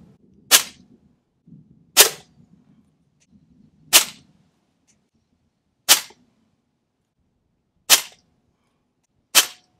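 A moderated Diana Bandit .22 PCP air pistol firing six shots, roughly two seconds apart, each a short sharp report.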